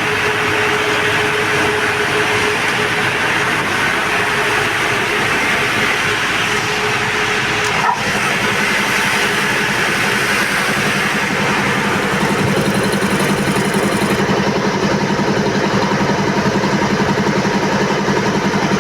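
Montoya air compressor running steadily. About eight seconds in, a sharp click comes, and after it a lower, even pulsing is heard under the noise.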